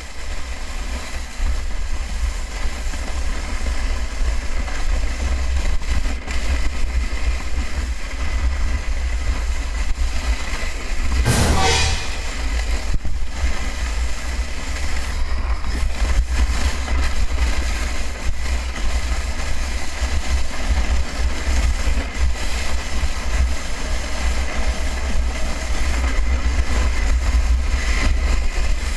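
Plastic snow sled sliding fast down an icy track, its base scraping and rattling over the ice, with wind rumbling on the camera's microphone. A brief louder burst about eleven seconds in.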